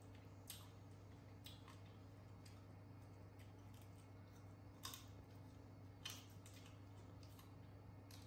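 Near silence over a low steady hum, broken by a few faint, sharp crunches as a monkey bites into crisp small green fruit; the two loudest come about five and six seconds in.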